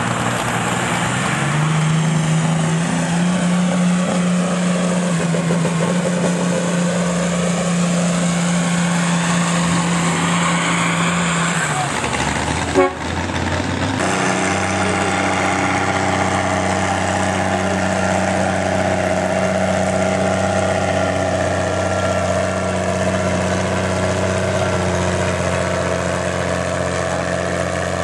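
Heavy diesel tractor engine working hard under full load while pulling a weight-transfer sled, its note rising about two seconds in and then holding steady until it stops near the middle. After a brief break, another farm tractor's engine runs steadily at a lower pitch.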